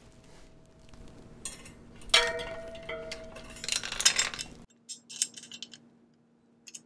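Metal SRAM bicycle chain clinking and rattling as it is handled and fed onto the sprockets, with a louder ringing clank about two seconds in and another burst of clinks around four seconds, then a few lighter clicks near the end.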